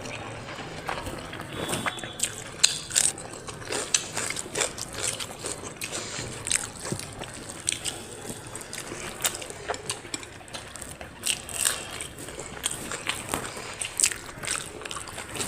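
Close-up eating sounds: irregular wet squishing and smacking clicks as rice with dal and curry is mixed and eaten by hand and chewed.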